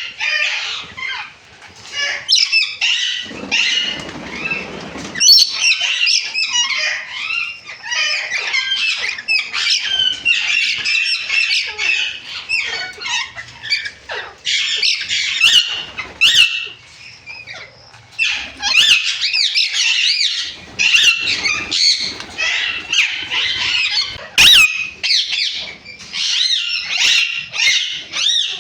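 A group of parrots calling all at once: a dense, continuous chatter of shrill squawks, chirps and screeches, with a short fluttering rustle a few seconds in.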